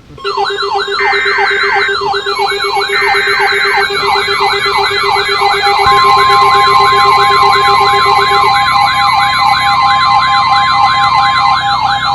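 NOAA Weather Radio emergency alert for a blizzard warning. Two short SAME header data bursts come in the first few seconds, and a steady warning alarm tone starts about six seconds in. Throughout, several weather radio receivers' siren alarms sweep rapidly up and down, over a steady buzzing beep that stops about eight seconds in.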